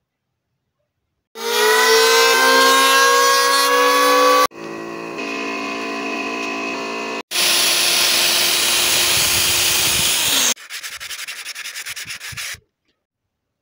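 An electric woodworking power tool running and cutting wood in short, abruptly cut bursts, first a whine that drifts slightly up, then a loud hissing cut. Near the end, quick regular strokes of sandpaper rubbed by hand along a wooden strip.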